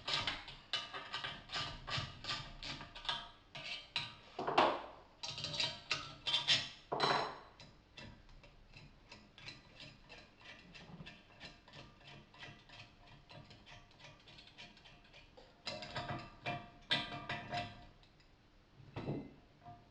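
Rapid, even clicking of a hand tool, about five or six clicks a second, as the exhaust blow kit's clamp is undone from the pipe. The clicking fades to faint ticks about eight seconds in and comes back loudly for a couple of seconds near the end.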